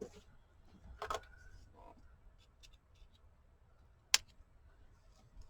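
Quiet handling of paper and craft tools: faint rustles and small clicks, a brief scrape about a second in, and one sharp click about four seconds in.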